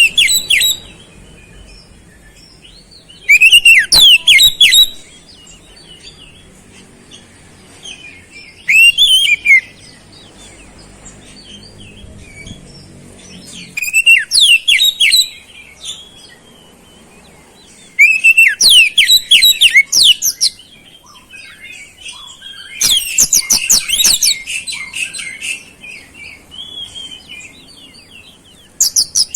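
Oriental magpie-robin singing in loud, repeated phrases about every four to five seconds, each starting with a swooping whistle and breaking into rapid, high, twittering notes. The song is laced with imitations of flowerpeckers.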